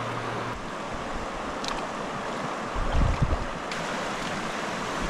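Rushing water of river rapids, a steady hiss. About three seconds in, a brief low buffeting on the microphone.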